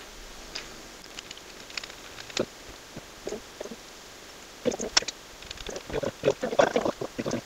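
Scattered clicks and knocks of a 3D printer's metal Z rods and small parts being handled, coming thick and fast over the last few seconds.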